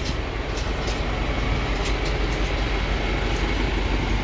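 Farm tractor engine running steadily, with light metallic rattles and clicks over the rumble.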